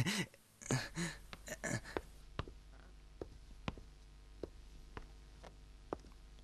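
Faint footsteps on a hard floor, a soft tick every half second or so, after a brief trailing voice sound in the first second or two.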